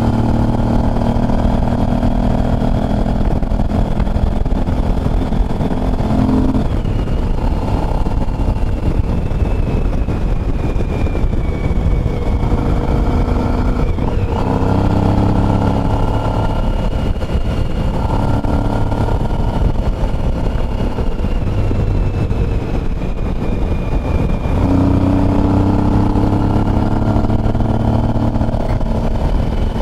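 Motorcycle engine running while riding along a road, with heavy wind rush on the camera microphone. The engine note shifts pitch in steps a few times, about 7, 14 and 25 seconds in, as the rider changes speed.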